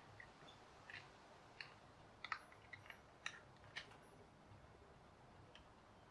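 Faint clicks and taps of plastic building bricks on a Lego-clone car chassis being handled and pressed together, a scattering of them in the first four seconds and one more later.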